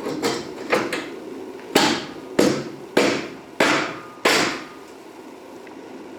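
Hammer blows: a few light taps, then five heavy strikes about two-thirds of a second apart, each ringing out briefly.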